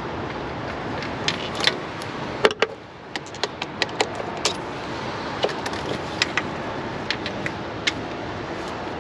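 A series of sharp clicks and clinks, irregularly spaced, over a steady rushing noise, which dips briefly about three seconds in.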